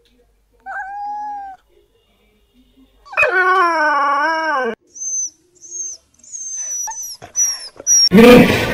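A cat meows once. About three seconds in, a small dog howls for about a second and a half, then gives a series of short, high-pitched whimpers. A loud, rough sound cuts in near the end.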